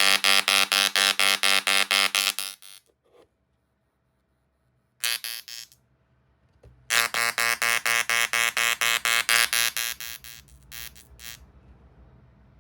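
Tesla coil spark discharge buzzing in rapid pulses, about six a second, in several bursts separated by short pauses.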